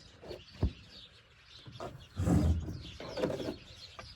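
Birds chirping, with two louder, lower cooing calls about two and three seconds in.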